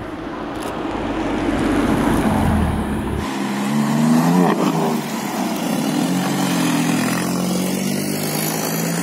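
BMW M4's twin-turbo straight-six accelerating as the car drives up, the engine note climbing. About three seconds in the sound cuts to another recording of the car on a city road, its note rising and falling quickly as it passes, then running steadily.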